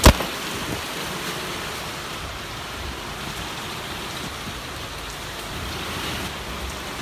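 Steady rain falling, an even hiss, with one sharp click right at the start.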